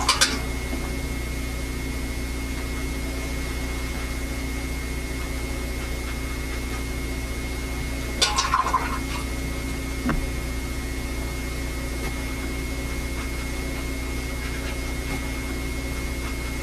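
Steady hum and hiss of an old VHS recording, with a short sound about eight seconds in and a light click about two seconds later.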